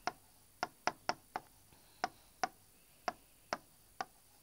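A pen tip tapping and clicking against a writing board as a word is handwritten. It makes about ten sharp, short taps at uneven intervals.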